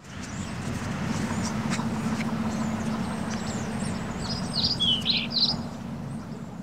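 Steady outdoor background rumble, with a few short bird chirps a little past the middle.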